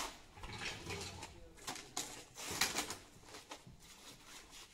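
A shovel and trowel scraping through a pile of concrete mix on a metal mixing sheet: several short gritty scraping strokes, the loudest about two and a half seconds in.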